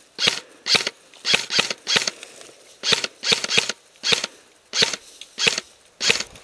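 Airsoft rifle firing single shots, about a dozen sharp cracks at irregular spacing, some in quick pairs or threes.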